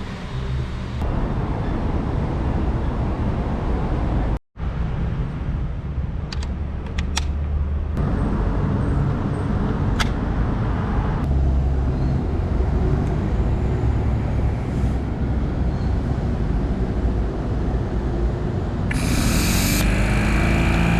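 ZS-DC5090M brushless air compressor running steadily, with a low mechanical drone. The sound cuts out for a moment about four seconds in. A loud hiss of air joins near the end.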